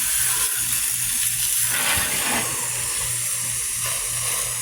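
Garden hose spraying water over a car, a steady hiss, with a low pulsing hum underneath.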